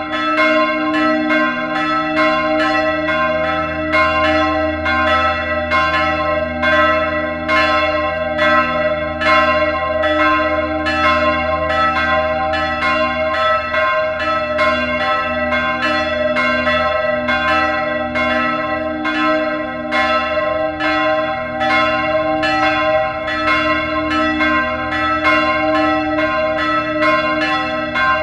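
Neskirkja's church bells ringing together in a continuous peal: several bells struck in quick succession, close to three strikes a second, with their tones ringing on beneath the strikes.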